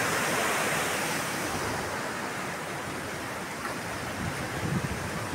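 Floodwater of a swollen river rushing past, a steady noise of moving water that eases slightly over the first couple of seconds.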